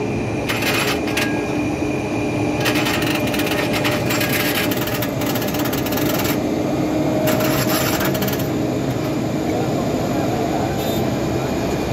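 Jet airliner engines running on the airfield: a steady rushing noise with a constant whine, and patches of crackling hiss that come and go.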